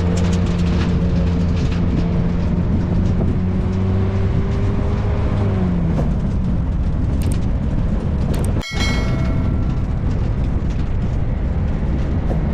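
Motor vehicle engine running under steady load with a low hum whose pitch drops about six seconds in, as the engine slows. The sound breaks off briefly about two-thirds of the way through and then carries on.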